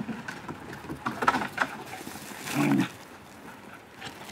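Dogs playing rough: scuffling noises, then a short low growl about two and a half seconds in.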